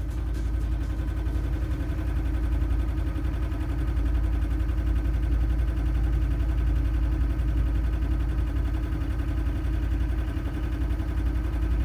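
A boat engine running steadily: a constant low rumble with a steady hum above it.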